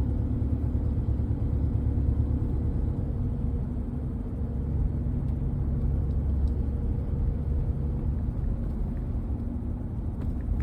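Steady low rumble of a four-wheel-drive vehicle's engine and tyres heard from inside the cabin while driving, with a faint steady hum over it.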